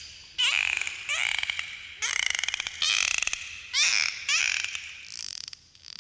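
Dolphin calling underwater: a quick series of about seven short squeaky calls, each around half a second long, with whistles that glide up and down in pitch and stretches of rapid buzzing clicks.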